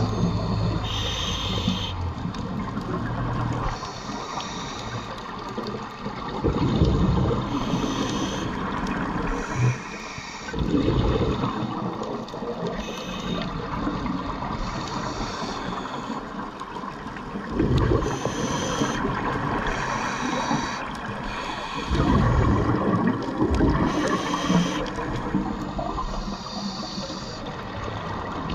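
A SCUBA diver breathing through a regulator underwater. Rumbling bursts of exhaled bubbles come every several seconds, with shorter hissing breaths in between, over a constant wash of water noise.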